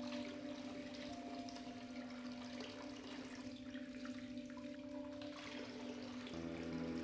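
Running water rushing steadily over a low, steady hum. About six seconds in, music with changing notes comes in.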